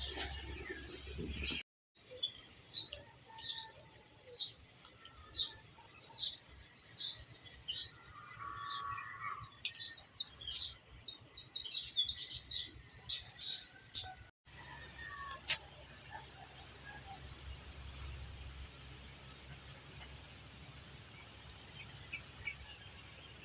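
Steady high insect drone with a small bird chirping repeatedly, about two short chirps a second; the chirping stops about halfway through, leaving only the insect drone.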